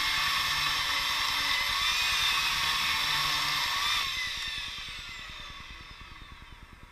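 Electric chainsaw running at full speed, cutting into a dry apricot trunk. About four seconds in it is released and its high whine falls in pitch and fades as the chain coasts to a stop.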